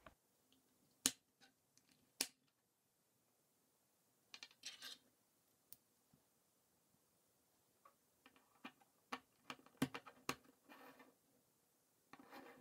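K'NEX plastic rods and connectors being handled and snapped together on a tabletop: faint scattered clicks, with two sharper snaps in the first few seconds and small clusters of clicks later on.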